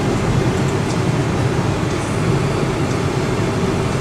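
Steady road and engine noise of a moving vehicle, heard from inside the cabin.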